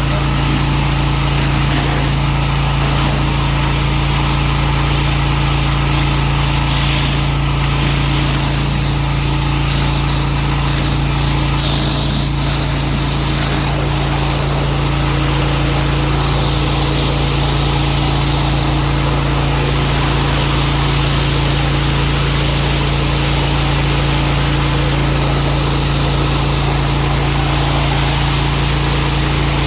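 Pressure washer running steadily, its motor holding a constant pitch, with the hiss of the water jet rising and falling as the spray moves over a surface.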